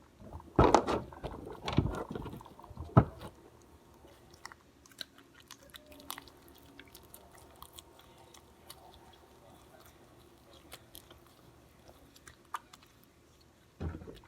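Slime being squished and kneaded by hand as Tide laundry detergent is worked into it. There are a few loud wet squelches and a sharp click in the first three seconds, then faint sticky clicks, with one more squelch near the end.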